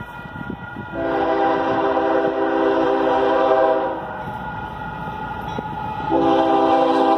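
Air horn of an approaching Union Pacific locomotive sounding for a road crossing: one long chord blast of about three seconds starting about a second in, a pause, then a second, louder long blast starting near the end as the train nears.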